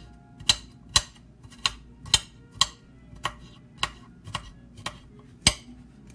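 Kitchen knife chopping celery on a glass cutting board: sharp clicks of the blade striking the glass, about two a second and unevenly spaced.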